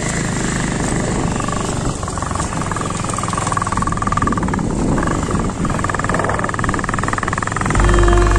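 Motorcycle engine running as the bike rides along a dirt track, with steady road and wind noise; it gets louder near the end.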